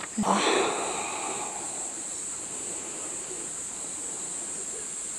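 Insects chirring steadily at a high pitch, an unbroken outdoor insect chorus.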